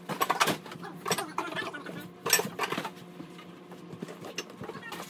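Knocks and clatter of household belongings being handled and carried by movers, the sharpest knock about two seconds in, over a steady low hum.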